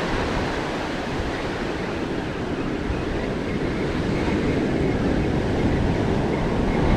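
Ocean surf breaking and washing up a sandy beach: a steady rushing wash, with wind buffeting the microphone.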